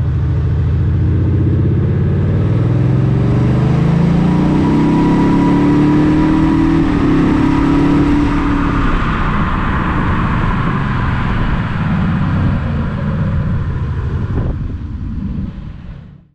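Audi S7 TDI's 3.0-litre V6 diesel accelerating, its engine note rising in pitch for about seven seconds, then falling away as the car eases off, before fading out near the end.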